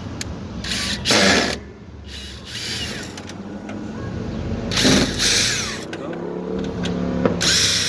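Cordless DeWalt drill-driver run in three short bursts, about a second in, about five seconds in and near the end, backing screws out of a window air conditioner's casing, over a steady low rumble.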